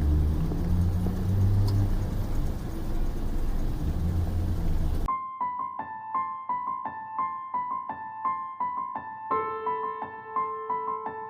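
A rumbling motor with wind-like noise, cut off abruptly about five seconds in by electric-piano music: short notes repeated at an even pace, with a held lower note joining near the end.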